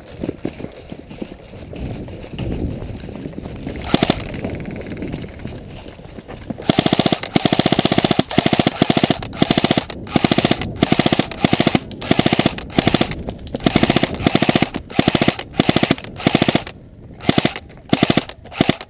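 Airsoft electric gun firing fully automatic, in rapid bursts that start about a third of the way in and repeat with short pauses. One sharp click comes earlier, about four seconds in.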